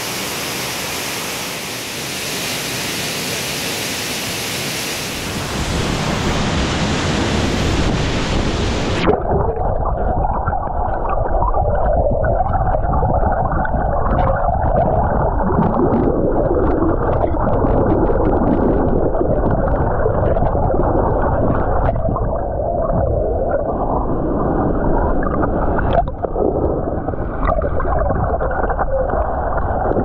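Waterfall pouring into its plunge pool, a steady full-range rush of falling water. About nine seconds in the sound turns abruptly muffled as the microphone goes underwater: a dense low churning rumble from the plunging water, with bubbles crackling and popping through it.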